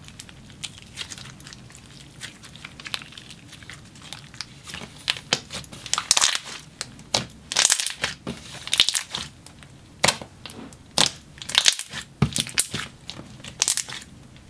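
Thick, glossy slime with marshmallow beads being squeezed, folded and pressed flat by hand: a run of short wet clicks and pops. They are sparse at first and come thick and loud from about five seconds in.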